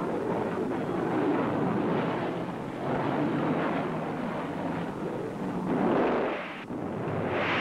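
Rolling rumble of airstrike bomb explosions, swelling and fading several times, with a sharper blast near the end.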